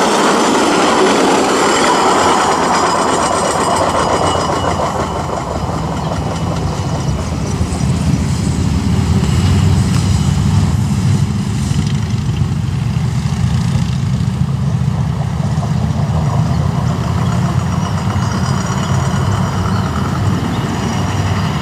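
Chevrolet Silverado hi-rail pickup truck running along the rails, loudest as it passes close at first, then fading as it moves off down the track. A steady low rumble continues underneath throughout.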